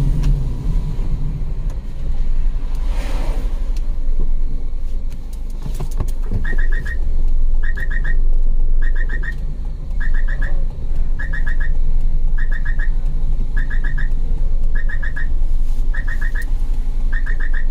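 Car engine idling as a steady low rumble, with a short high chirp of a few quick pulses repeating evenly about once a second from about six seconds in.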